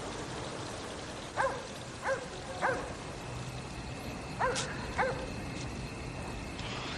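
A dog barking: five short barks, three about half a second apart, then two more a couple of seconds later, over a steady background hiss.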